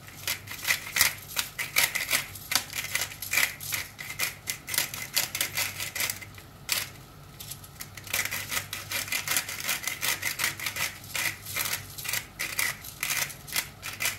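Tomatoes cooking in a frying pan: rapid, irregular clicking and crackling, easing off for a moment about six seconds in before picking up again.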